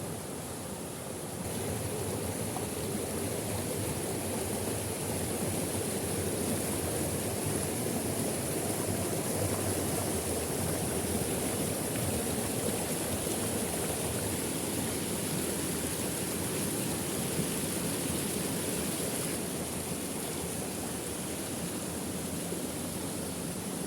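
Steady rush of water from a waterfall, an even hiss without pauses, growing louder about a second and a half in and easing off a little near the end.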